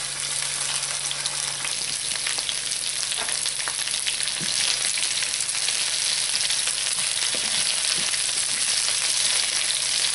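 Asparagus spears frying in hot oil in a pan: a steady sizzle with scattered small crackles.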